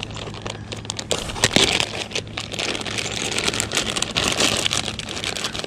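Plastic zip-top bag crinkling and rustling as hands rummage through the soft plastic fishing baits inside it, with many irregular sharp crackles.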